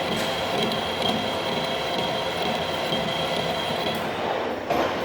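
Metal lathe running while turning a steel cart axle, with a steady high whine from the cut that stops about four seconds in.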